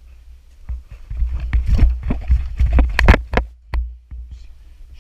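A run of knocks and scrapes, as of a caver moving over rock and mud, from about a second in until near the end, over a steady low rumble of handling noise.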